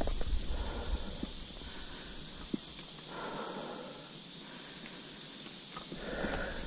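Mountain bike rolling across mown grass, with tyre rustle and small knocks and rattles from the bike. A steady high-pitched chorus of insects runs underneath.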